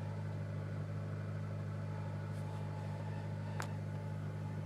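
2007 Honda Civic Si's 2.0-litre four-cylinder engine idling steadily in neutral with the clutch pedal released, with the rattling noise from under the hood that stops whenever the clutch pedal is pressed down. A faint single click about three and a half seconds in.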